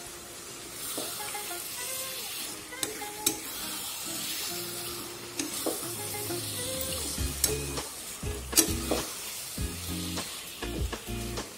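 Raw chicken pieces sizzling in spice masala in a kadai while a metal spatula stirs and turns them, with sharp clicks and scrapes of the spatula against the pan. The stirring grows busier from about six seconds in.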